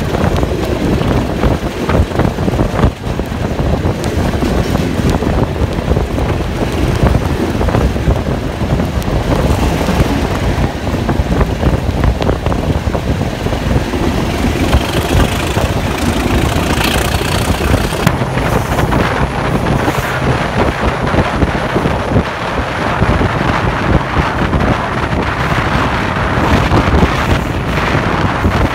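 Diesel locomotive engines running under power, heard close from the open window of the coach behind, with wind buffeting the microphone. First it is a DRS Class 37's English Electric 12-cylinder diesel; later the sound changes to a DRS Class 68's Caterpillar V16 diesel.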